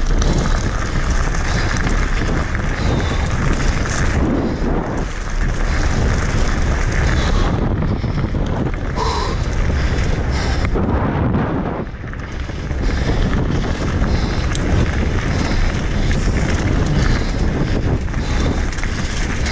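Wind buffeting the microphone of a mountain bike at downhill speed, over the steady noise of knobby tyres on gravel and the clatter of the bike over rough ground. The noise dips briefly about twelve seconds in, then picks up again.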